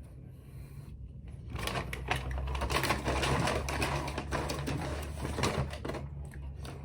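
Rapid, dense crackling and clicking while eating takeout food, starting about a second and a half in and fading out near the end.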